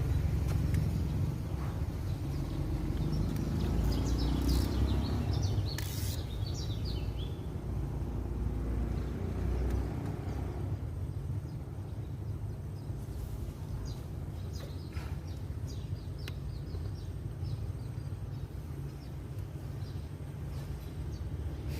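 Birds chirping over a steady low rumble: a cluster of high chirps about four to six seconds in, then quick repeated chirps through the second half.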